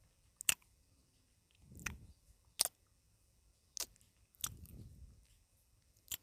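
Eating chicken noodles up close to the microphone: chewing and mouth noises with two soft swells, and about five sharp clicks scattered through.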